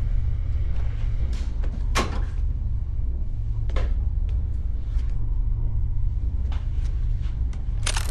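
A steady low hum with light knocks and clicks scattered through it. Right at the end, a loud hiss of spraying water bursts in.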